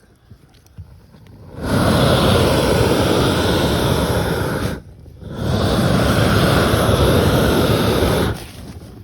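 Roofing torch flame blowing hard in two long blasts, each about three seconds, with a short break between: heat is being played on self-adhered roll roofing to make it stick to the base sheet in cold weather.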